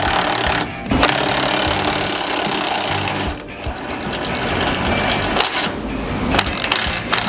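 Power impact wrench hammering out a large bolt through a 1-5/8 inch socket, running in several bursts with short pauses, as the bolt holding a snow plow trip spring is backed out.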